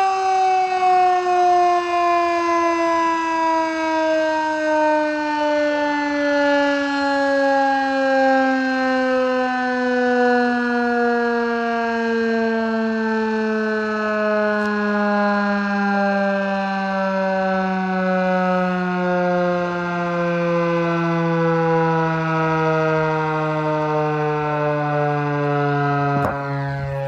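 Federal Signal 2001-130 single-tone rotating electromechanical siren winding down after a test sounding, its tone falling slowly and steadily in pitch. Near the end comes a short handling knock as the camera is picked up.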